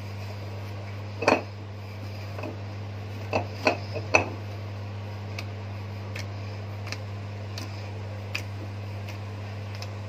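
Glass mixing bowl clinking and knocking as spinach paratha dough is kneaded by hand in it: one sharp knock about a second in, three more around three to four seconds in, then lighter ticks. A steady low hum runs underneath.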